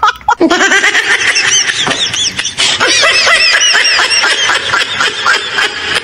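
High-pitched giggling laughter, quick repeated rises and falls in pitch that run on without a break.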